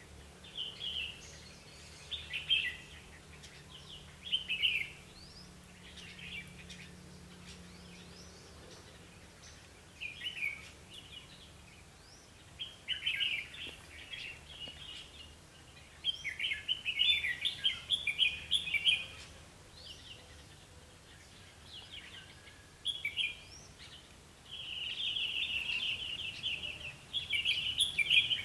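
Red-whiskered bulbuls singing: short phrases of song at irregular intervals, running into longer stretches of song about halfway through and near the end.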